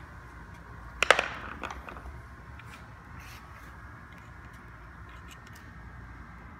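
A sharp clack of hard objects about a second in, followed by a few lighter clicks and taps, as a screw and tools are handled for driving into the repaired chair.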